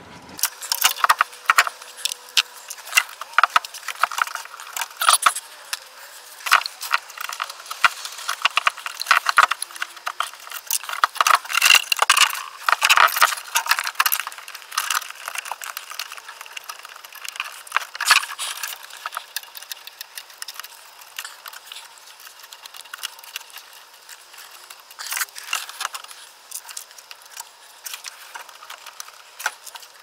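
Irregular clicks, knocks and rattles of a plastic RV fresh water pump and its wires being handled and worked into place by hand.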